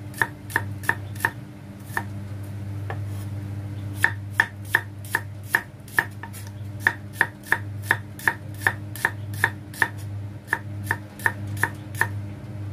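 Cleaver slicing shallots thin on a wooden chopping board: a run of sharp knocks of the blade on the wood, about three a second, broken by a pause of about two seconds after the first second or so. A steady low hum runs underneath.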